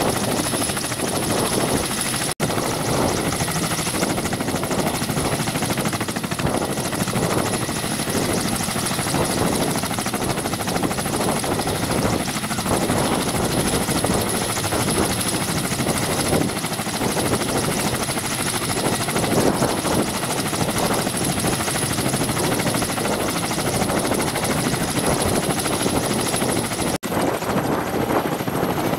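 Ka-27PS helicopter running on the ground before takeoff: its twin turboshaft engines give a steady high turbine whine over the rapid, even chop of the coaxial rotors.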